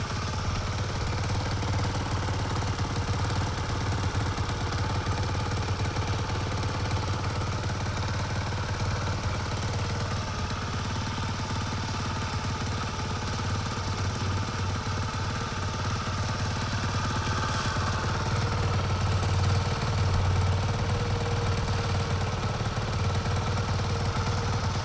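Motorbike engine idling steadily, getting a little louder about three-quarters of the way through.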